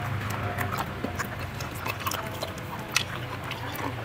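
Close-up eating sounds of people chewing tough, rubbery python meat and poultry: scattered wet clicks and smacks of mouths and teeth, with one sharper click about three seconds in, over a steady low hum.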